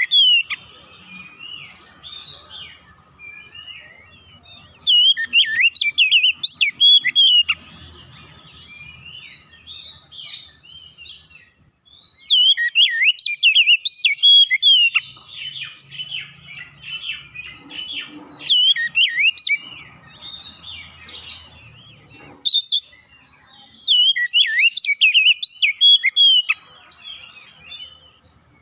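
Oriental magpie-robin singing: several loud runs of quick, varied whistled phrases, with softer twittering between them.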